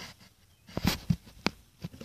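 Phone handling noise: a few short knocks and rustles as the phone's microphone rubs against hair and clothing, starting about a second in after a quiet moment.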